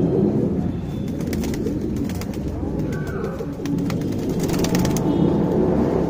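Domestic pigeons cooing, a low continuous coo throughout. Two runs of rapid clicks, one about a second in and another shortly before the end.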